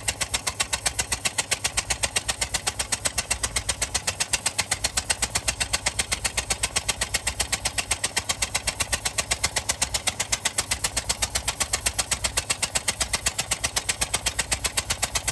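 1969 Ford F350's FE 360 V8 idling with a loud, sharp puffing tick, about six a second, from pressure blowing out at one cylinder of the head. The owner takes it for a blown-out spark plug or worse damage to the cylinder head; his dad thinks it is a leaking exhaust donut or manifold gasket.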